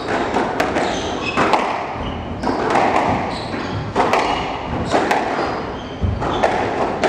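Squash rally: the ball cracks off rackets and the walls about once a second in a reverberant court, with short high squeaks from shoes on the wooden floor in between.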